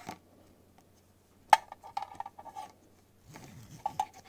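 Metal buckle and keepers of a NATO strap clicking and clinking against a steel dive watch as the strap is threaded on by hand. A few sharp clicks, the loudest about a second and a half in and a small run of them soon after, with a soft handling rustle shortly before the last clicks.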